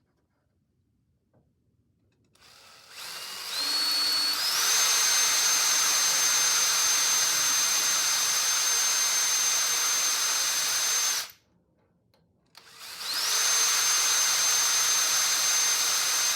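Electric drill running a 2 mm bit through a metal door hinge. It winds up to a steady high whine a couple of seconds in and runs about eight seconds. It stops, then starts again about a second and a half later.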